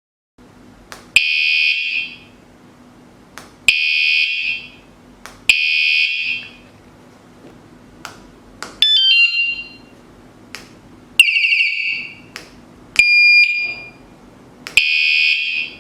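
Electronic bike alarm sounding seven short high-pitched bursts, each about a second long and each preceded by a click. Most bursts are the same steady tone, while the middle ones switch to stepping notes, a fast warble and a two-tone pattern.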